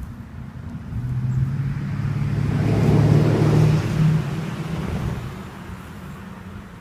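A motor vehicle passing by: a low engine hum and tyre noise swell, peak about three seconds in, then fade away.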